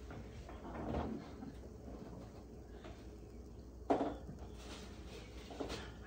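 Kitchen handling sounds: a brief swelling rustle about a second in, then a sharp knock about four seconds in and a lighter one near the end, like a cupboard door or an item set down on the counter.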